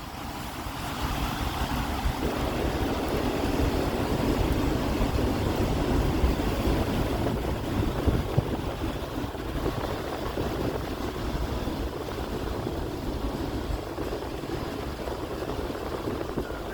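Storm wind rushing and buffeting the microphone, a steady roar of noise with a fluttering low rumble, swelling a little after the first two seconds.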